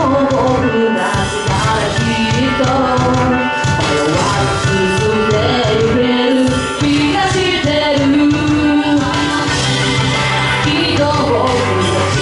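A woman singing live into a handheld microphone over loud backing music with drums.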